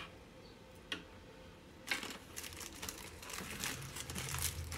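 Plastic packaging crinkling as a bundle of small bags of diamond painting drills is handled. A couple of light clicks come first, and the crinkling starts about two seconds in.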